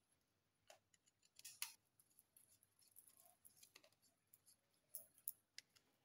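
Near silence with a few faint scattered clicks from a screwdriver and wire being worked into the terminal of a plastic light switch.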